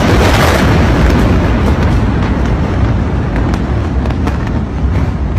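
Roar and deep rumble of a massive chemical explosion's blast, loud and slowly fading, with scattered sharp cracks over it.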